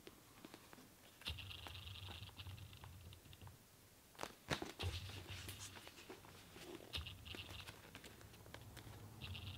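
Faint handling of a thick paperback manga: paper rustling and soft taps as pages are turned by hand, with a few sharper page flicks about four and a half seconds in.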